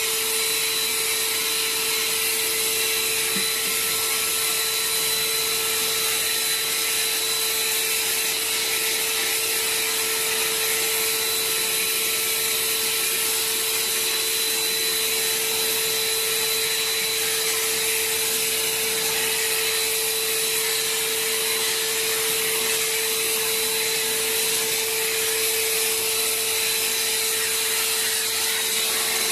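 Vacuum cleaner running steadily: a constant motor whine over an even rushing hiss, with no change in speed.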